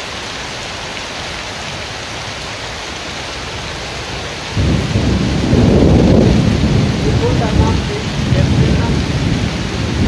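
Steady rain, then about halfway through a loud, rolling rumble of thunder sets in and keeps going, swelling and easing under the rain.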